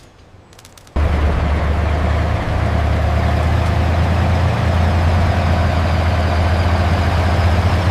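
Heavy vehicle engine idling steadily with a deep hum, cutting in abruptly about a second in.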